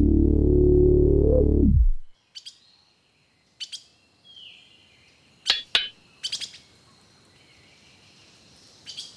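A loud, low electric hum with a steady pitch, like a machine running. It slides in pitch and cuts off about two seconds in. Then come scattered short bird chirps over a quiet background.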